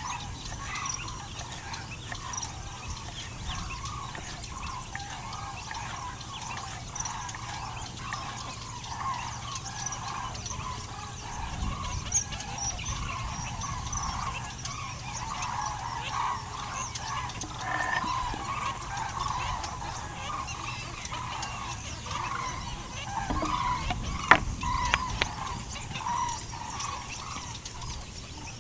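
A dense, steady background chorus of short, repeated animal calls, with two sharp clicks about four seconds before the end.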